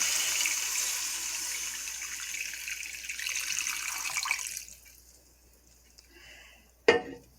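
Water being poured into a deep skillet, a steady pour that tapers and stops about four and a half seconds in. A single sharp knock near the end.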